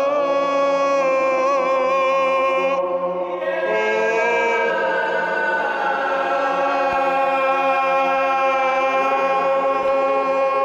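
Several voices singing long, held chant-like notes together in a large concrete chamber, the notes overlapping at different pitches. About three seconds in the singing briefly thins, then more voices come in and the drone carries on.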